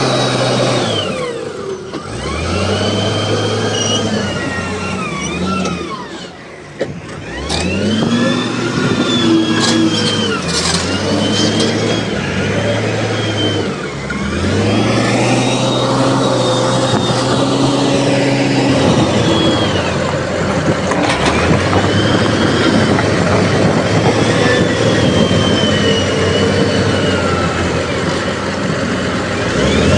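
Heavy earthmoving machinery's diesel engines working, revving up and easing off again and again, with a brief lull about six to seven seconds in.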